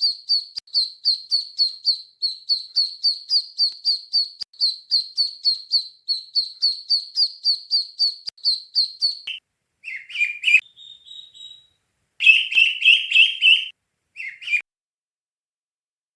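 Duckling peeping: a rapid run of high chirps, about four or five a second, for roughly the first nine seconds, then a few shorter, lower bursts of chirping.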